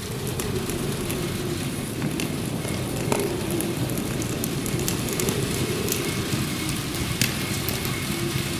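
Wood fire crackling and popping over a steady hiss of rain, with sharp pops scattered throughout, the loudest about three and seven seconds in.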